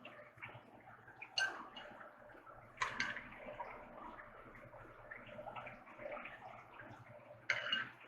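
Close-miked wet chewing and mouth sounds of someone eating scallop and tilapia ceviche: a constant patter of small smacks, with three louder clicks about a second and a half in, at about three seconds and near the end.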